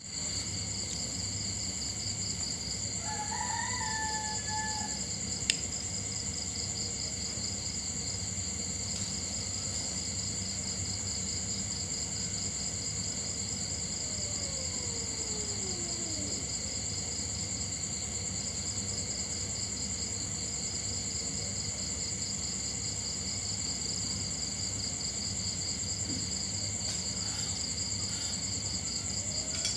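Steady night chorus of crickets, a continuous high pulsing trill with a thin steady tone above it. A short, high-pitched call lasting about a second and a half comes about three seconds in, and a single sharp click follows about two seconds later.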